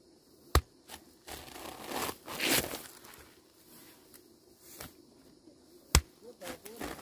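Close rustling and crackling of rice plants near the microphone, with two sharp clicks, one about half a second in and one about six seconds in.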